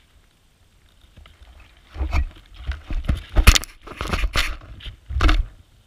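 Sheep nosing and jostling right against a ground-level camera as they feed on grain around it: a string of close knocks, bumps and rustles on the camera, starting about two seconds in and loudest about three and a half seconds in.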